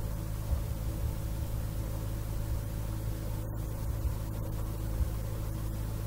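Steady low hum with a stack of even overtones and faint hiss underneath, broken by a few soft low bumps.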